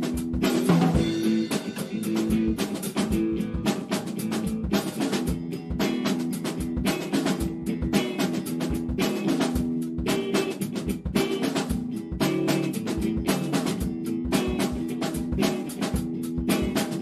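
Live improvised funk jam by a trio of drum kit, electric guitar and keyboards: busy snare and bass drum pattern under repeated held low chords.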